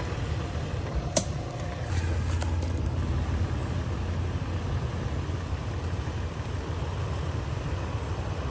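Toyota 4Runner's V6 engine running at low revs as the truck crawls slowly forward, the hum getting a little louder about two seconds in. A single sharp snap comes about a second in.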